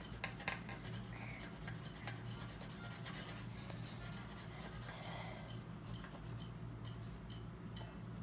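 Colored pencil scratching back and forth on paper as a drawing is coloured in: faint, with a few light ticks.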